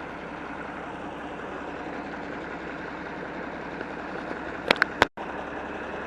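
John Deere 4630 tractor's six-cylinder diesel engine idling steadily. Near the end come two sharp clicks, followed by a brief dropout in the sound.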